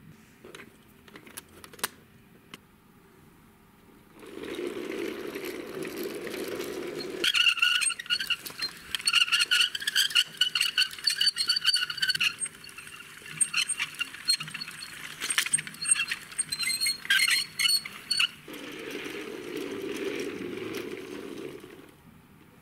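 Toy car-carrier truck with die-cast cars being handled and rolled across the floor: light clicks and clinks of metal toy cars at first, then a steady rolling rumble of the plastic wheels. In the middle comes a louder stretch of high squealing tones broken by many sharp clicks and rattles, and near the end the rolling rumble returns.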